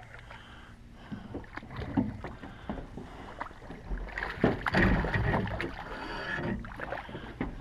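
A hooked trout splashing and thrashing at the surface beside a boat as it is reeled in, with scattered knocks and clicks. The splashing is heaviest from about four to six and a half seconds in.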